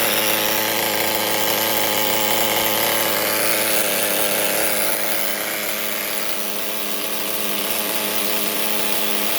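SH .18 two-stroke nitro (glow) engine with a Losi 3.4 tuned pipe, running at a steady speed; the sound eases slightly a little past halfway, then picks back up.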